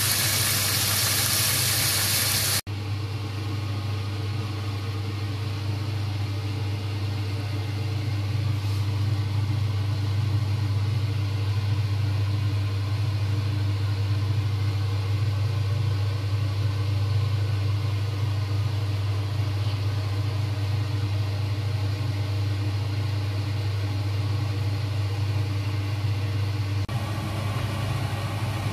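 Fish heads sizzling in hot oil in a wok, over a steady low hum. The sizzle cuts off abruptly about two and a half seconds in, and the steady low mechanical hum carries on alone.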